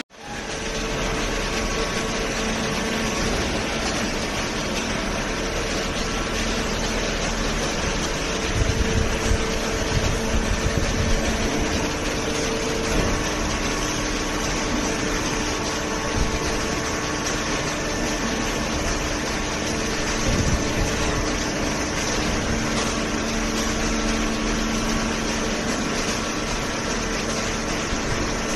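Horizontal cardboard baler with infeed conveyor running: a steady machine hum with a couple of faint steady tones, and a few louder rough bursts about eight to twelve seconds in.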